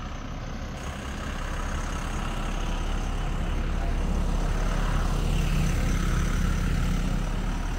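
Heavy truck engine running nearby, a steady low hum that grows louder over the first few seconds and then holds.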